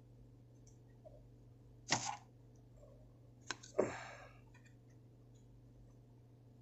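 Hands working a Zippo-style lighter insert and its cotton wadding: a short scrape about two seconds in, then a sharp click and a brief rustle a little later, over a faint steady hum.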